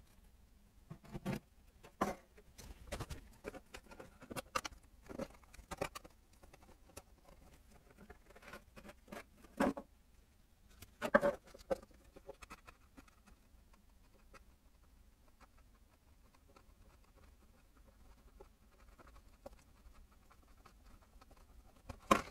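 Scattered clicks and light knocks, with a pattering quality, from work at the underside of a Kawasaki KM90 engine while its gearbox oil is drained; the loudest knock comes about eleven seconds in, then only faint ticks follow until a last pair of knocks at the end.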